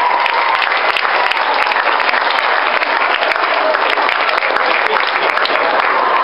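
A large audience of school students applauding, a dense, steady clatter of many hands clapping.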